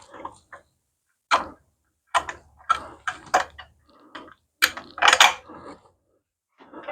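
Irregular clicks and knocks of tools and metal parts being handled during workshop work, about a dozen sharp strokes, the loudest cluster about five seconds in.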